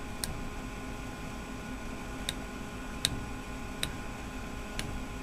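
Light, sharp clicks and ticks from fingers handling a small plastic power-supply fan and picking at the sticker on its hub, about five scattered over the stretch, over a faint steady hum.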